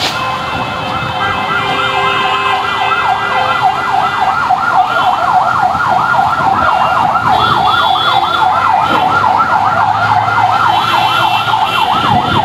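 Emergency vehicle siren sounding a fast yelp, its pitch sweeping up and down about four times a second, loud and unbroken; the fast yelp sets in about a second in.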